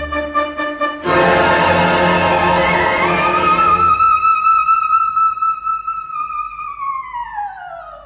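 Orchestra playing loud chords while a coloratura soprano rises to a very high note. She holds the note alone for a few seconds after the orchestra drops away, then near the end slides smoothly down in pitch.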